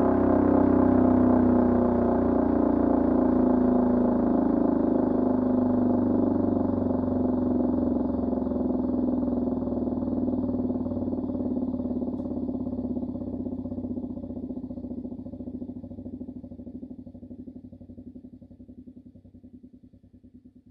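Siemens-Schuckert Fm Si 41 electromechanical air-raid siren of about 1940 running down after being switched off. Its tone fades steadily over about twenty seconds, the higher tones dying away first, and near the end it turns into a faint pulsing hum as the rotor coasts to a stop.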